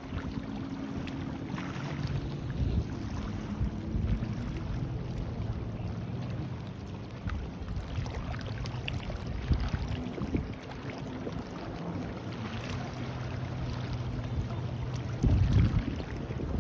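A boat engine running with a steady drone whose pitch shifts a little, while wind buffets the microphone, with a strong gust near the end.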